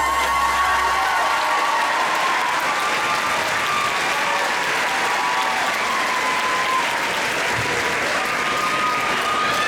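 Crowd applauding and cheering, with shouts and whoops over steady clapping. The last of the music's bass fades out about a second in.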